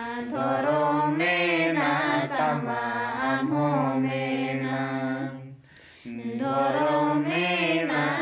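A group of people singing a slow song together, with a woman's voice on the microphone out front. The singing breaks off for a short breath pause about five and a half seconds in, then picks up again.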